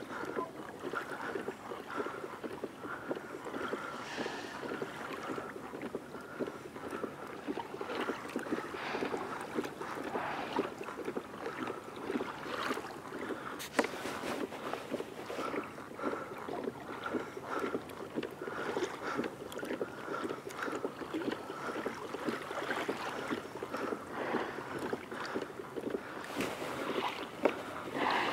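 Water lapping and splashing lightly against a kayak's hull, a continuous run of small irregular splashes.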